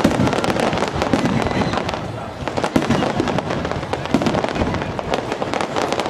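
Aerial fireworks shells bursting in a dense, uneven run of sharp pops and bangs, easing off briefly about two seconds in and then picking up again.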